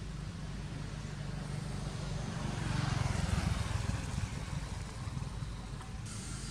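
A motor vehicle passing, its noise swelling to a peak about three seconds in and then fading, over a steady low rumble.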